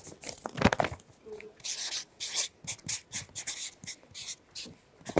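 Marker writing on a paper pad: a run of short scratchy strokes, with a louder thump a little under a second in.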